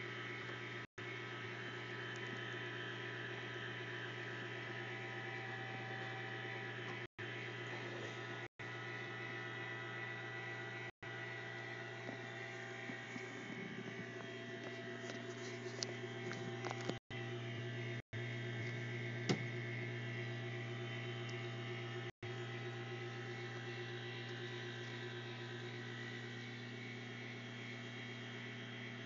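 Electrically powered HOHM driving-school chassis model running with a steady electric hum, with a few light clicks about halfway through.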